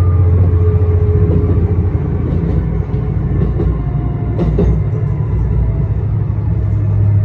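ET122 diesel railcar running into a station, heard from the driver's cab: a steady low engine and running rumble, with a brief clatter of wheels about four and a half seconds in.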